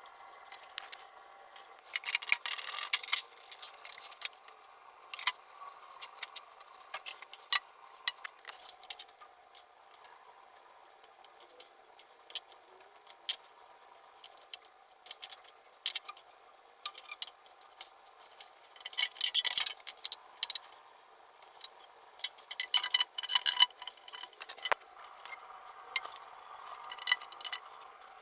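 Plumbing hand work: tools and hard fittings being handled, clicking, knocking and scraping in irregular bursts, with two longer, louder scraping spells, one early and one about two-thirds of the way through.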